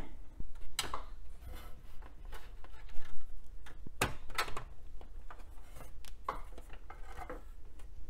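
Scattered clicks and small knocks of a PC100 SDRAM memory stick being worked loose and pulled from its motherboard slot, with fingers on the plastic slot latches and the board.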